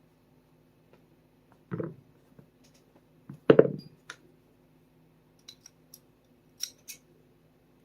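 Small parts and tools being handled while a Sig Sauer P365 pistol is reassembled: two dull knocks about two and three and a half seconds in, then several light clicks.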